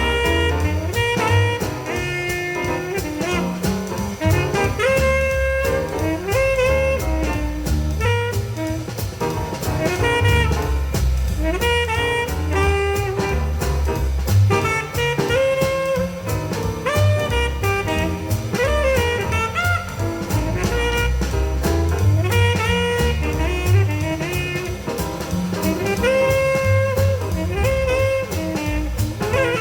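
Jazz recording with saxophone lead, bass and drum kit, played back through a parallel single-ended 300B tube power amplifier.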